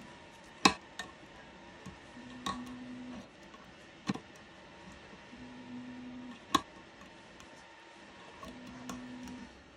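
An X-Acto knife cutting and poking through thin FEP film stretched on a plastic resin vat frame, giving three sharp clicks, the first the loudest, with lighter ticks between. A faint low hum comes and goes every few seconds.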